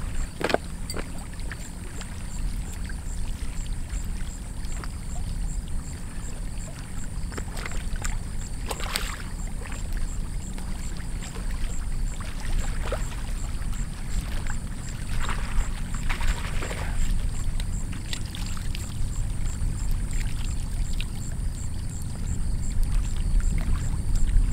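Steady low wind rumble on the microphone over small waves lapping at a rocky lakeshore. A few brief splashes and knocks come in the middle as a fish is let back into the shallows.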